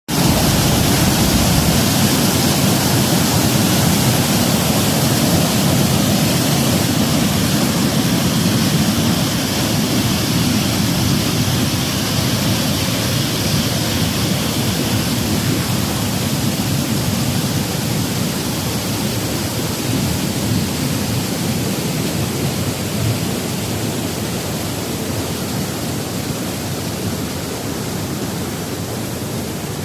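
Waterfall rushing: a steady wash of falling water that slowly grows a little quieter.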